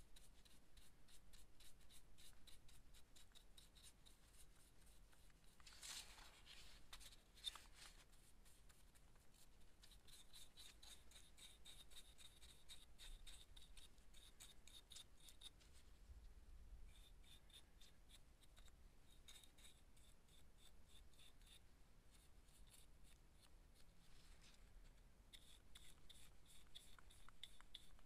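Paintbrush brushing solvent stain onto turned ash wood: faint, quick, scratchy strokes, with a louder rub about six seconds in and a sharp click shortly after.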